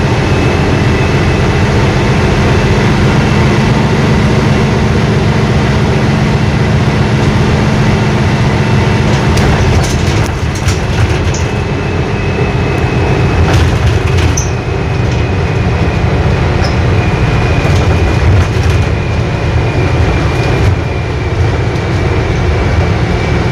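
Cabin noise of a Solaris Urbino 12 IV city bus underway: the steady low drone of its DAF MX11 six-cylinder diesel and the road, with a faint steady high whine throughout. The low engine tone drops away about ten seconds in, and a few light rattles and clicks follow over the next few seconds.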